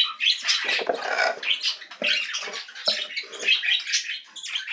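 Wood-shaving bedding in a cockatiel nest box being scraped and stirred, a run of irregular rustles and scratches, with cage birds chirping.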